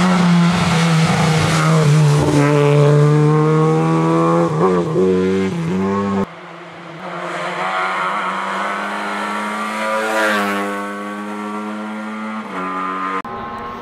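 Lada 2105 rally car's four-cylinder engine driven hard, its pitch climbing and falling in quick gear changes about four to six seconds in. The sound drops suddenly and changes character about six seconds in, then climbs again under acceleration near the ten-second mark.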